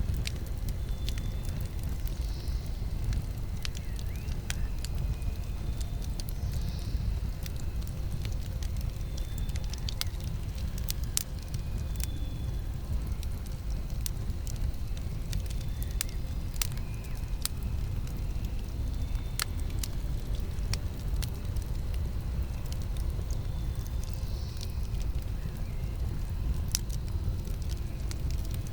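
Campfire burning: wood crackling with scattered sharp pops over a low, steady rumble.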